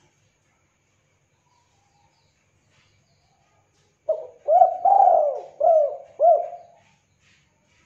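Spotted dove (tekukur) cooing: one loud phrase of five coos, starting about four seconds in and lasting some three seconds.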